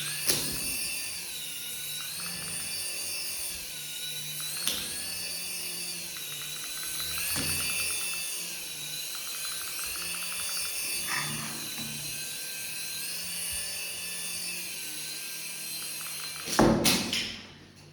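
Small electric motor of a toy remote-control helicopter whining, its pitch rising and falling as the throttle changes. There are a few sharp knocks, and a louder noisy burst near the end.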